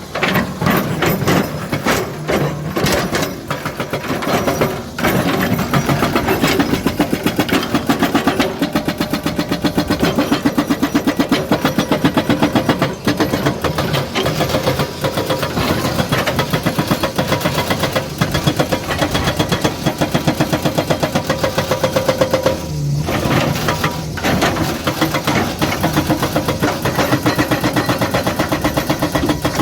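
Excavator's diesel engine running, with a fast, even pulse.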